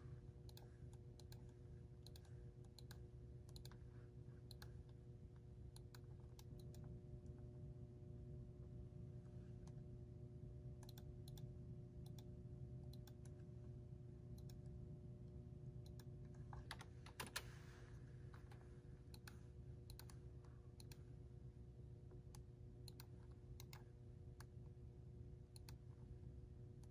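Faint, scattered clicks of a computer mouse and keyboard during CAD drafting, with one louder click about two-thirds of the way through, over a faint steady hum.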